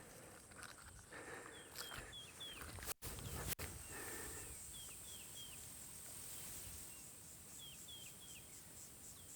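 Quiet bush ambience: a steady high-pitched insect drone with a bird's short descending chirps, repeated in quick runs of three. Some low rustling is heard in the first few seconds.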